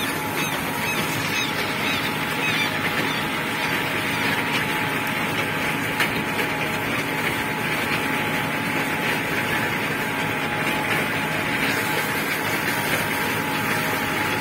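New Holland TL95 tractor's diesel engine running steadily under load while pulling a 19-row Semeato seed drill through the field, heard close from on the tractor.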